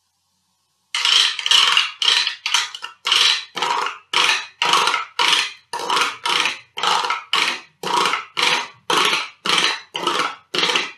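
A chopstick scraped back and forth across the ridged cells of a plastic ice cube tray, a rasping stroke about twice a second, starting about a second in. It is played as found percussion to sound like roadworks or someone drilling.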